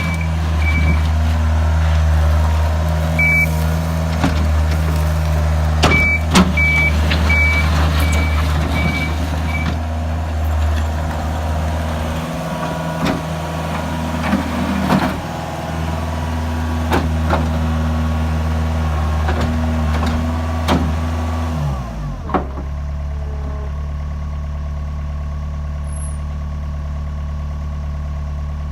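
Takeuchi TL130 skid steer's diesel engine running, with scattered knocks and clanks from the machine working and a beeping alarm in the first ten seconds or so. At about 22 seconds in, the engine note dips and settles into a steady idle.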